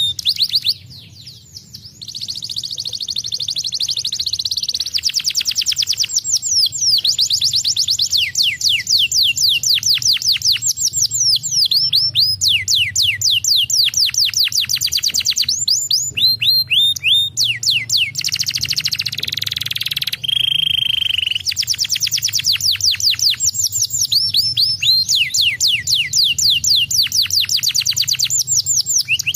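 Domestic canary singing: long runs of rapid, falling trilled notes, one phrase after another, with a short break about a second in and a steady held whistle about two-thirds of the way through.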